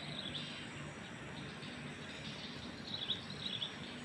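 Outdoor ambience with short high bird chirps, a quick run of them at the start and another about three seconds in, over a steady background hiss.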